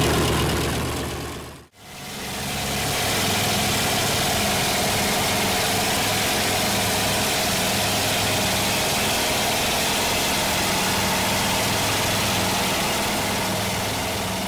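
A North American B-25 Mitchell's twin Wright R-2600 radial engines running as it taxis, fading out sharply about two seconds in. It then comes back as a steady, even engine drone heard inside the bomber's fuselage through the takeoff roll and climb-out.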